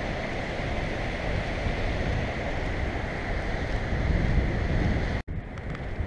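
Steady rush of whitewater river rapids, with wind buffeting the microphone. It cuts off abruptly about five seconds in, leaving quieter outdoor noise.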